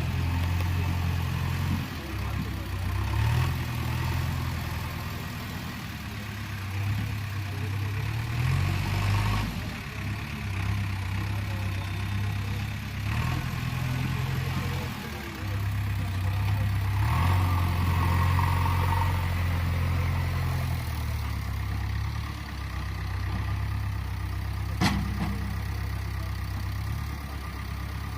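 JCB 3DX backhoe loader's diesel engine running, its speed stepping up and down repeatedly as the machine works. A single sharp knock near the end.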